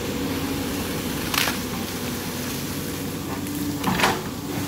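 Caterpillar 320D L excavator's diesel engine running steadily as the arm works the bucket in muddy water, with two short bursts of hiss, about a second and a half in and near the end.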